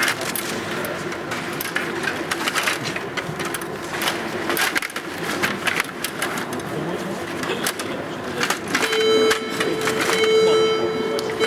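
Table hockey being played: rapid clattering and clicking of the rods, plastic player figures and puck against the table. About nine seconds in, a steady buzzing tone starts and keeps sounding.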